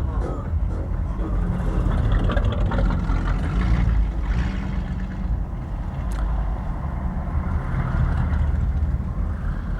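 Steady low rumble of a car's engine and tyres heard from inside the cabin while crawling along slowly in traffic.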